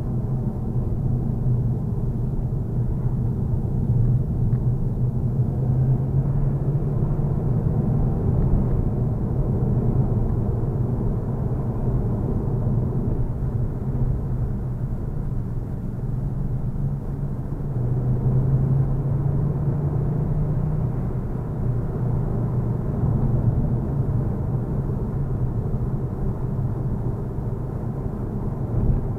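A car driving on an open road, heard from inside the cabin: a steady low drone of engine and road noise that swells slightly about two thirds of the way through.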